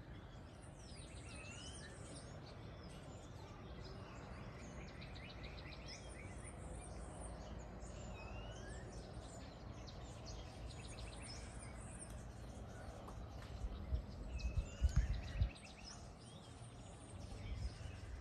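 Several birds calling in a dawn chorus: repeated short chirps, trills and rising whistles, over a faint steady outdoor background. About 14 seconds in there is a short stretch of loud low rumbling on the microphone.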